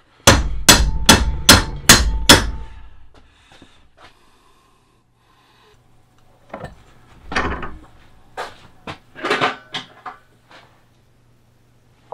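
Hand hammer striking a steel rod clamped in a bench vise: six sharp, ringing blows about 0.4 s apart, hammering a bend into the rod. Later come quieter scattered knocks and handling of the metal at the vise.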